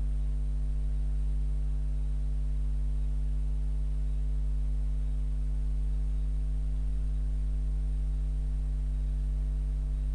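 Steady electrical mains hum: a constant low drone with fainter higher tones stacked above it, unchanging throughout.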